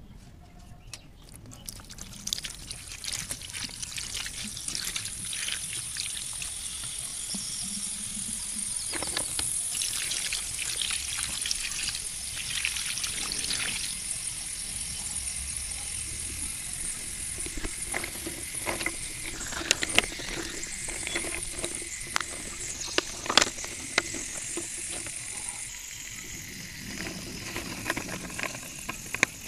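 Water poured into a steel plate heaped with dry slate pencils, with a steady high hiss and trickling as it runs in among them. In the second half, sharp clicks of the wet pencils knocking against each other and the plate.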